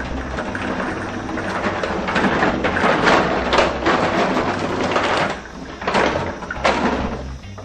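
Wire-feed welder arc crackling and spattering, in one long run that breaks off about five seconds in and a shorter run near the end, over a steady electrical hum. It is welding with no shielding gas, which gives rough, spattery welds.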